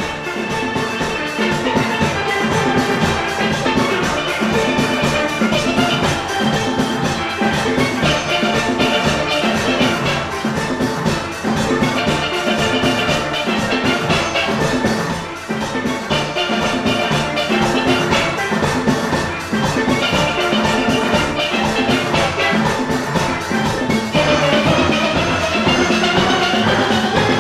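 A full steel band playing an up-tempo tune: many steelpans together over a driving drum and percussion rhythm section. Near the end the pans play a rising run.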